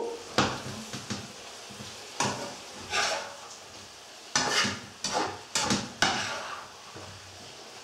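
Stainless slotted spatula scraping and knocking against a frying pan as a cauliflower-rice stir-fry is stirred, in separate strokes that come closer together in the second half, over a faint sizzle of the food frying.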